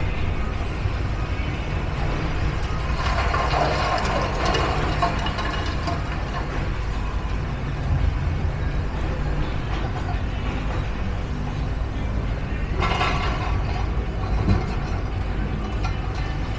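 Steady low rumble of heavy vehicle engines, with two louder passes of hissing noise, one about three seconds in and one near the end.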